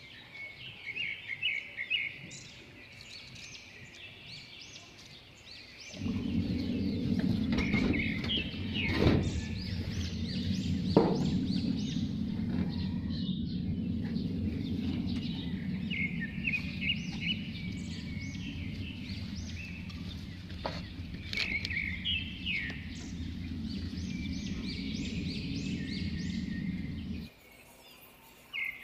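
Small birds chirping over and over. A steady low rumble, the loudest sound, comes in about six seconds in and cuts off abruptly near the end, with a few knocks over it.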